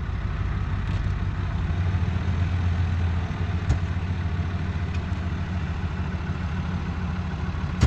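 1987 Ford Thunderbird's engine idling steadily, the car just stopped up on ramps. A light click about halfway through and a sharp click near the end.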